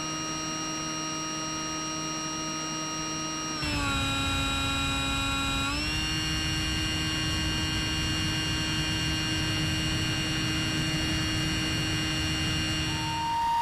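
Electric motor and propeller of a Bixler 3 RC plane giving a steady whine with overtones. The whine drops in pitch a little under four seconds in as the throttle eases, then comes back up about two seconds later. A hiss of rushing air joins at the drop and stays, and a new, higher tone comes in near the end.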